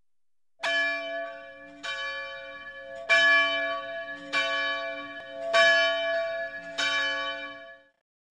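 A single church bell tolled six times, about one and a quarter seconds apart, each strike ringing on under the next and the last fading away.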